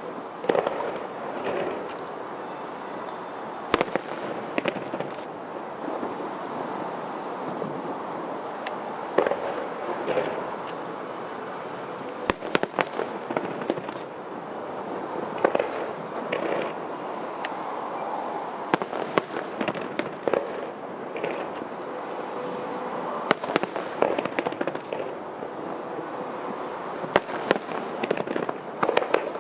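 Aerial fireworks shells bursting: sharp bangs at irregular intervals, some coming in quick clusters, over a steady background noise.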